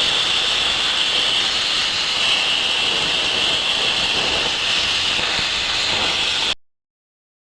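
Plasma cutting torch of a portable CNC plasma cutter, its arc running in a steady high-pitched hiss that cuts off suddenly near the end.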